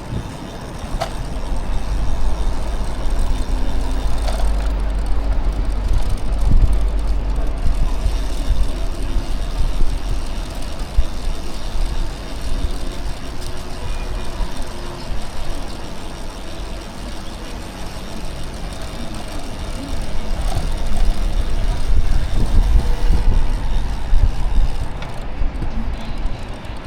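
City street traffic heard from a moving bicycle, steady road noise with a heavy low rumble of wind on the microphone. It grows louder about two seconds in and again from about twenty seconds on.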